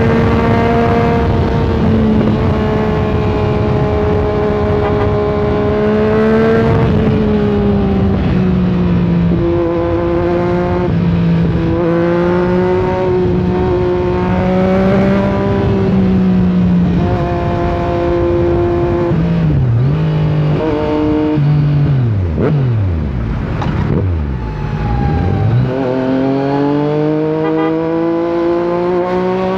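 Yamaha MT-09's inline three-cylinder engine under way. It runs at a fairly steady pitch that steps up and down between gears, drops low and swoops back up twice about two-thirds of the way through as the bike slows, then rises steadily as it accelerates near the end.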